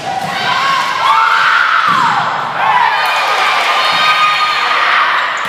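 Crowd cheering and shouting in a gymnasium at the end of a volleyball rally, with long, rising-and-falling high yells over the din.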